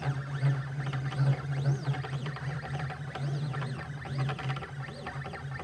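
Stepper motors of a 3018 PRO CNC machine driving the laser head round a circle, whining in repeated rising-and-falling pitch sweeps over a steady low hum.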